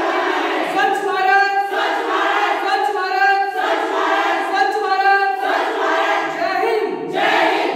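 A group of young men and women shouting a slogan together in unison, the same short chanted phrase repeated several times.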